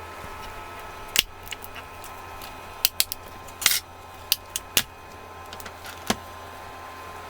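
Small hand tools clicking and tapping against a tablet's internals during a repair: about eight sharp, irregular clicks over a faint steady hum.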